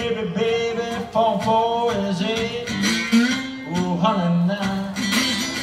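Solo blues: an archtop hollow-body guitar played with a man singing over it, the notes bending and sliding in pitch.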